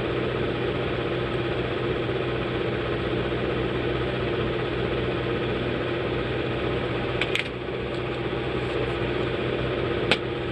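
Steady hum of a small motor or fan running, with a light click about seven seconds in and another near the end.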